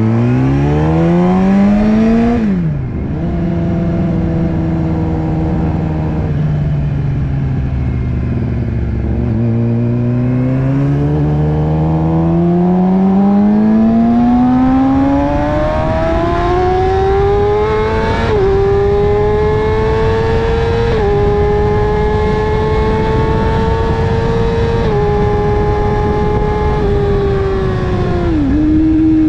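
Sport bike engine heard from on board, with wind rushing past. It revs up, drops back and runs slowly at low revs, then pulls hard with the revs climbing steadily and stepping down at three upshifts, before the throttle closes and quick blips of downshifts come near the end.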